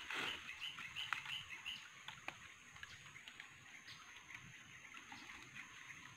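Birds chirping in short repeated calls over a steady high-pitched tone, with a brief splash in the water right at the start.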